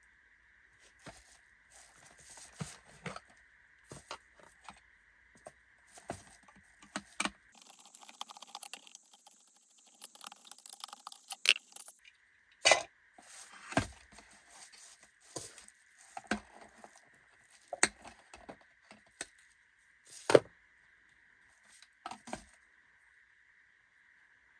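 Irregular clicks, knocks and clatter of small hard plastic and metal parts being handled, about a dozen sharp hits spread through, over a faint steady high-pitched tone that drops out for a few seconds in the middle, replaced by a hiss.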